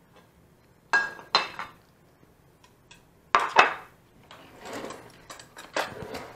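Metal spatula clinking and scraping against a glass baking dish and a plate while lasagna is served. There are a few sharp clinks, some with a short ring, and a louder cluster about halfway through.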